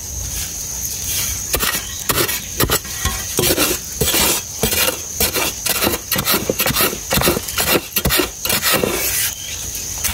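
Gloved hand scraping and scooping dry, loose soil out of a small hole: a run of irregular scratchy rubs that stops shortly before the end.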